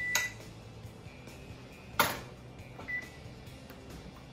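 Cookware clinking and knocking as food is served from a pot onto a plate: a sharp knock just after the start and a louder one about two seconds in. A high beep ends right at the start and a short one sounds about three seconds in.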